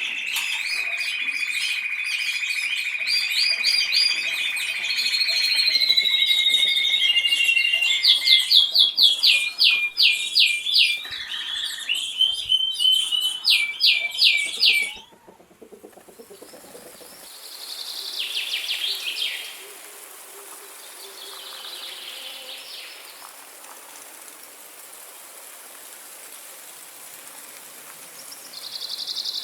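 Songbirds singing, several at once in a dense chorus of held whistles and rapid repeated trills. About halfway through it cuts off suddenly to a quieter stretch with a faint steady hiss and a few short falling calls.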